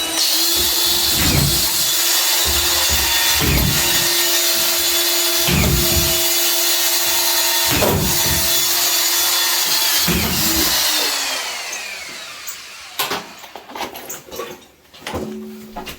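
A power tool runs steadily with a whine, a low thud coming about every two seconds. It winds down about twelve seconds in, and a few knocks and clicks follow.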